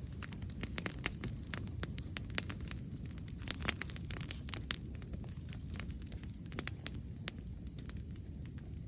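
Bonfire of cut wood crackling, with irregular sharp pops over a low steady rumble.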